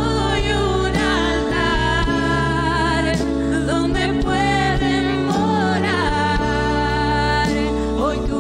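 Christian worship song: a solo voice sings with vibrato over sustained instrumental chords and a steady bass.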